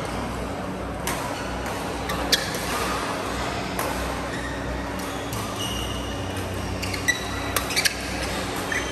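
Badminton rally in a large hall: sharp racket-on-shuttlecock hits, the loudest about two seconds in and a quick run of them near the end, with short high squeaks of shoes on the court mat, over a steady low hum of the hall.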